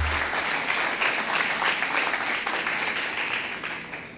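Audience applauding, a dense clapping that tapers off near the end, with a brief low thump at the start.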